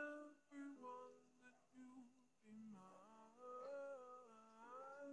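Faint, slow female humming or wordless singing, a melody of long held notes with gentle glides up and down.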